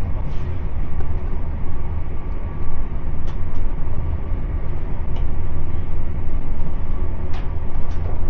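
Train running, heard from inside the passenger coach: a steady low rumble with a few light clicks and rattles now and then.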